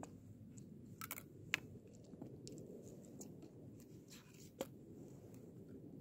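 A few short sharp clicks and clacks from handling the 3D-printed plastic RGS-50M grenade-launcher replica as it is swung and worked. The loudest comes about one and a half seconds in and another just past four and a half seconds, over a faint steady low background noise.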